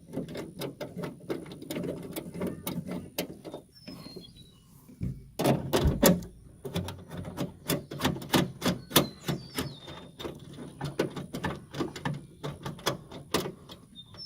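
Ratchet wrench clicking in quick runs as 10 mm screws on the tail light are loosened, with a louder knock about five seconds in.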